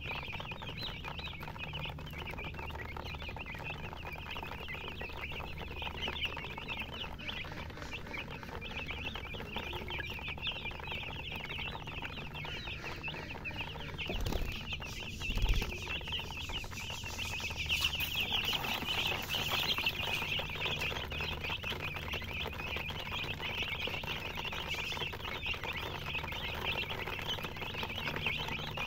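A brood of baby chicks peeping: many short, high chirps overlapping without a break, growing louder a little past the middle. Two dull thumps come about halfway through.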